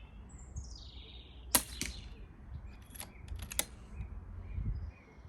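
A single shot from a silenced .177 Daystate Red Wolf Midnight air rifle: one sharp, muffled crack about a second and a half in, followed by several lighter clicks. Wind rumbles on the microphone throughout.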